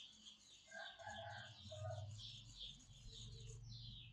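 Faint farmyard sounds: a hen clucking briefly about a second in, over a steady run of short, high, falling chirps repeating about three times a second. A low steady hum sets in about a second in.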